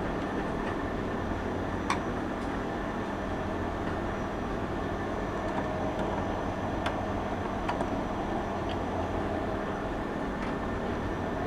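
Steady machinery hum with a few sharp clicks or taps, the loudest about two seconds in.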